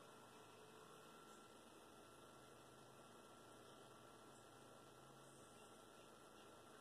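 Near silence: only a faint steady hum and hiss from the recording.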